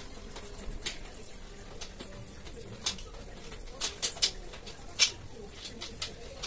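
Steel shelf panel and frame clinking as a perforated-mesh side panel is fitted onto the rack's frame rail by hand: a handful of sharp metallic taps, a quick cluster of three a little before the middle and the loudest about five seconds in.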